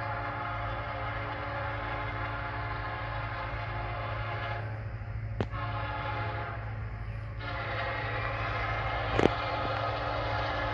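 Diesel locomotive air horn sounding a chord of several notes at once in long blasts. The horn breaks off about four and a half seconds in and then sounds again to the end, over a steady low rumble. Two sharp clicks come partway through.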